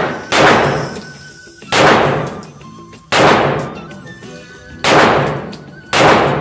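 Canik TP9SF 9mm pistol fired five times in slow, evenly paced shots about a second and a half apart, each report ringing on in the echo of an indoor range.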